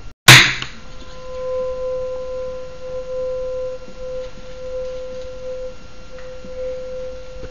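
Tuning fork struck once with a sharp knock, then ringing a single steady pure tone. The tone swells and fades several times as the fork is rotated: the interference pattern between its two prongs.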